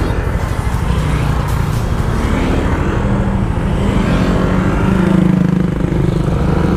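Motorcycle engine running and wind noise while riding. Other motorcycles pull up alongside, and the sound gets a little louder about five seconds in.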